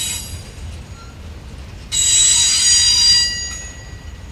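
Freight train cars rolling past with a steady low rumble, their wheels giving a high-pitched, ringing squeal. The squeal fades just after the start and comes back loudly about two seconds in for about a second and a half before trailing off.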